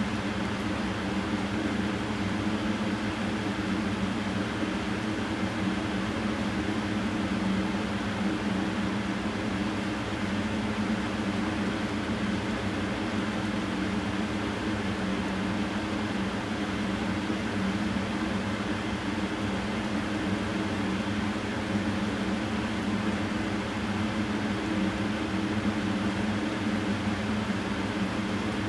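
A steady mechanical hum: a low drone with an even hiss over it, unchanging in level.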